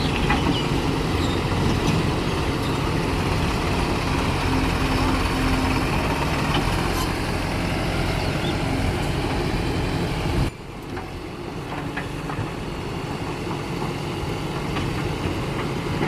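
Heavy diesel machinery engine running steadily. About ten seconds in the sound drops suddenly, then carries on quieter.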